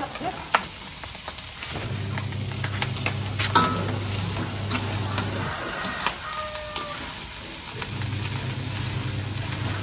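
Rice for nasi goreng frying and sizzling in a wok as a metal spatula stirs and scrapes it, with several sharp clinks of the spatula on the wok. A low hum comes in and drops out twice.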